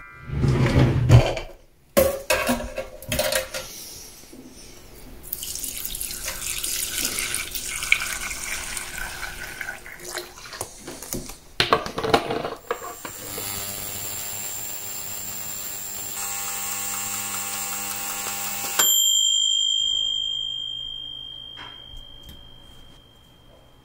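Ultrasonic cleaning tank in use. First come handling knocks and water sloshing as a wire basket of mesh parts-holders goes into the cleaning fluid. Then the tank runs with a steady humming buzz that cuts off abruptly, leaving a high tone that fades away.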